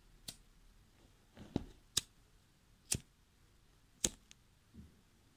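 A pocket lighter being struck over and over: about five sharp separate clicks, the last one about four seconds in lighting a flame.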